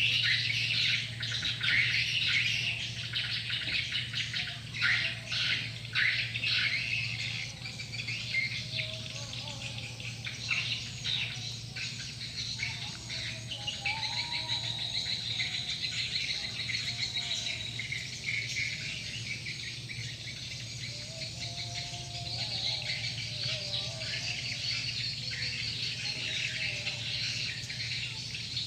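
Many edible-nest swiftlets chirping and twittering in a dense chatter, busiest in the first seven seconds and thinner after that, over a steady low hum.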